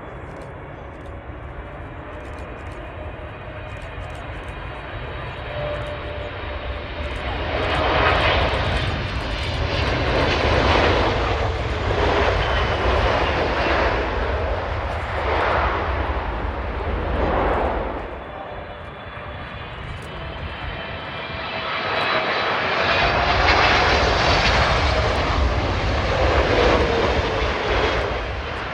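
Boeing 777 freighter's GE90 turbofan engines on landing approach: a loud jet roar with a gliding whine that swells as it passes, then dies down past the middle. A second, similar swell of engine noise builds and passes in the second half.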